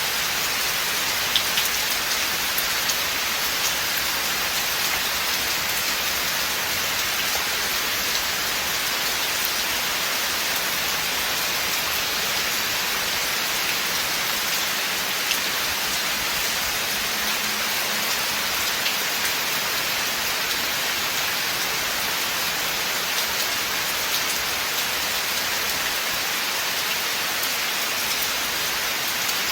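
Steady rain falling on a forest, a continuous even hiss with scattered close drop ticks.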